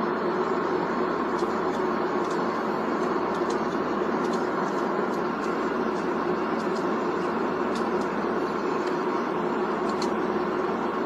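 Steady, unbroken cabin noise of an aircraft in flight, engine and airflow rushing evenly, with a low hum running through it and a few faint ticks.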